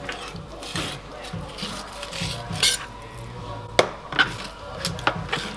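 Kitchen knife scraping and tapping on a plastic cutting board while an Arctic char is filleted, in irregular small strokes, with one sharp knock about two-thirds of the way through.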